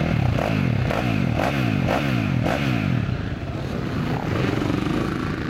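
Motocross bike engine revved in a series of quick throttle blips, about two a second, for the first three seconds, then settling back to a steadier running note.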